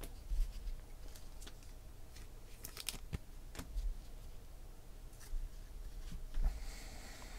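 Trading cards being handled on a table: scattered light clicks and taps of card stock, with a short sliding rustle near the end as a stack is picked up and squared in the hands.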